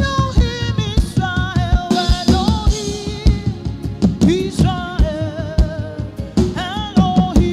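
Gospel worship music with a steady drum-kit beat and a voice singing long, bending notes.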